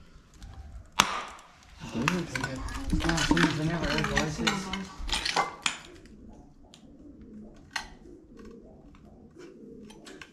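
Footsteps crunching and clinking over broken ceramic floor tiles and debris, with sharp knocks. A person's voice, not clear in words, runs for a few seconds from about two seconds in.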